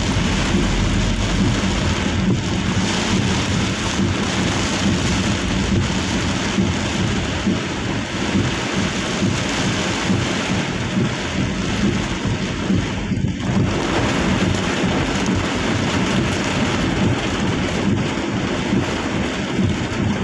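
Heavy rain drumming on a vehicle's roof and windscreen, heard from inside the cab: a steady, dense hiss with a deep rumble underneath.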